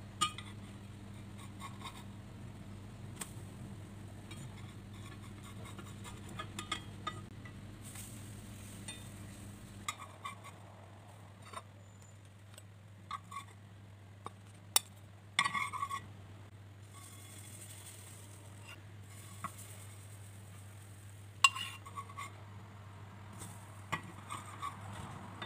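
Spatula clinking and scraping against a frying pan: a scattered handful of short sharp clinks, the loudest cluster about fifteen seconds in, over a low steady hum.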